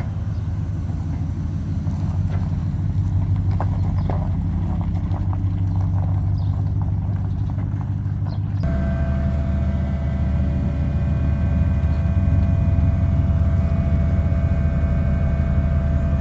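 Harvest machinery engine running steadily with a heavy low rumble. About halfway through, a steady high whine joins it.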